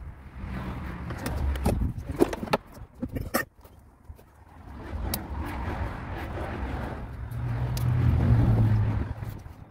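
A passing car on the road, its low rumble swelling and then fading from about five to nine seconds in. Several sharp clicks in the first three and a half seconds come from a screwdriver working on engine-bay plastics.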